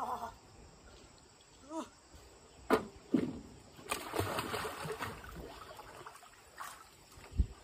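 A person plunging into an above-ground backyard swimming pool: a knock and a thud about three seconds in, then a splash and water sloshing that dies down.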